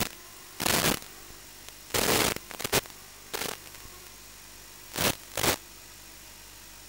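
Static from an analog FPV video receiver: a steady low hiss broken by several loud bursts of crackling noise, several in the first three seconds and two close together about five seconds in, as the video signal from the Walkera F210 quadcopter breaks up.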